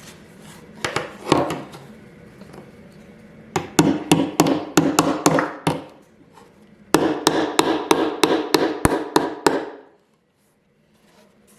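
Hammer tapping a small steel tie-wire staple that is supported from underneath, to set its points: a couple of single taps, then two quick runs of light blows at about five a second, stopping shortly before the end.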